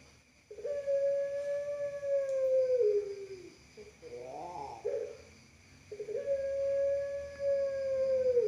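Puter pelung, a long-voiced breed of domestic ringneck dove, cooing: a short note, then a long drawn-out coo held for about three seconds that slides down in pitch at the end. A short rolling, wavering coo follows, then a second long drawn-out coo starts about six seconds in.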